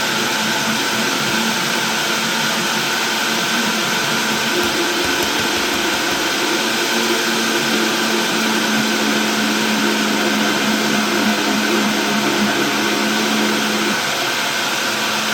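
Living Well countertop blender running steadily, blending a thick smoothie of frozen berries, banana, spinach and yogurt.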